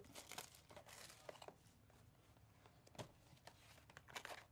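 Faint handling of a 2024 Topps Tier One baseball box: shrink-wrap being peeled and the cardboard lid opened, heard as a few soft rustles and small clicks, one about three seconds in and a few more near the end.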